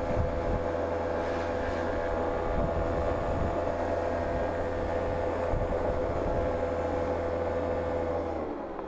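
Suzuki Street Magic scooter's engine running at steady revs on a climb, then easing off near the end, its pitch falling.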